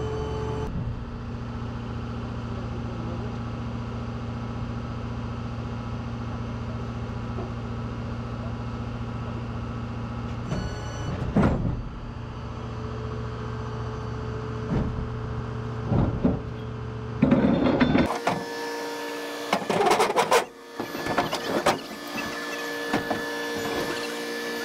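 Rollback tow truck running with a steady hum, with a few short knocks. From about three quarters of the way through, the low hum gives way to clattering and clunks over a higher steady whine.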